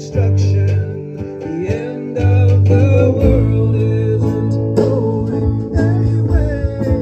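Live band music through a PA: acoustic guitar strumming over sustained bass notes, with a saxophone playing a wavering melody line.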